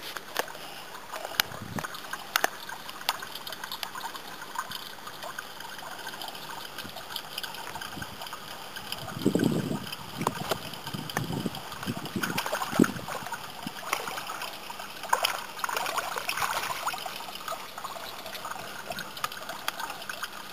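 Water trickling steadily in a small garden pond, with a run of splashing and sloshing about halfway through as a dog paws at the water.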